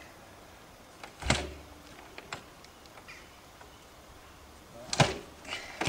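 1920s Henderson four-cylinder motorcycle being kick-started: two kicks about four seconds apart, each a sharp clank from the kick-starter and engine. After the first comes a brief low turnover that dies away, and the engine does not catch.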